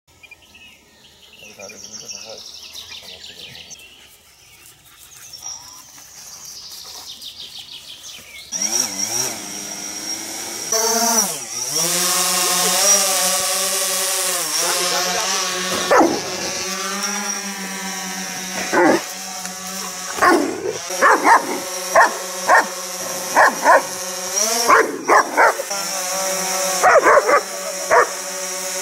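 DJI Phantom 4 quadcopter flying, its propellers giving a steady buzzing hum that slides up and down in pitch as it climbs and manoeuvres. From about halfway through, a German shepherd barks repeatedly at it, in quick bunches toward the end.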